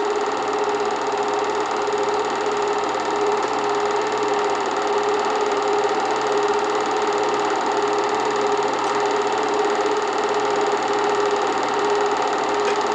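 8mm film projector running: an even, unchanging mechanical whir.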